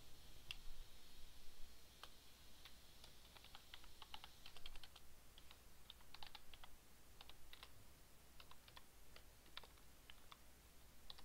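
Typing on a computer keyboard: faint, irregular keystrokes in short runs with brief pauses, busiest a few seconds in.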